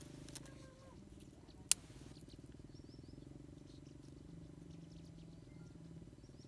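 A steady low pulsing chorus of calling frogs. Over it come twigs being handled while a small fire is laid, with one sharp snap of a stick about two seconds in.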